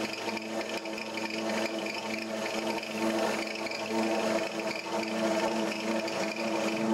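Drill press motor running steadily, its Forstner bit spinning as it bores into a paper bag of granulated sugar and then turning free as it is raised out of the hole.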